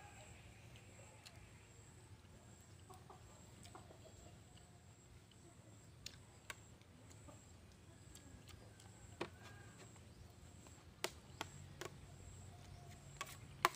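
Chickens clucking faintly in the background, and a metal spoon clinking sharply against a ceramic plate several times in the second half while a man eats.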